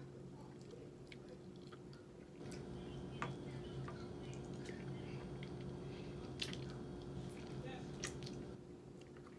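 A person chewing and biting into chicken wings, with scattered small mouth and finger clicks. A steady low hum runs underneath, growing a little louder about two seconds in.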